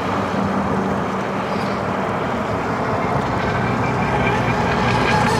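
Pro Boat Miss Geico battery-electric RC speedboat running on the river, heard over a steady rush of water and wind noise.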